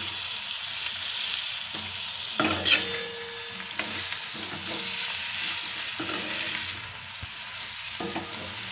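Cabbage, potato and tomato sabzi sizzling steadily in a steel kadhai as a spatula stirs and scrapes through it, with a sharper clatter of the spatula on the pan about two and a half seconds in.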